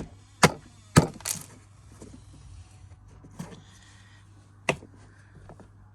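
Plastic parts of a Karcher K5 pressure washer being pushed and knocked into place: a series of sharp clacks and clicks, four in quick succession in the first second and a half, then two more, the last near the end sharp and loud.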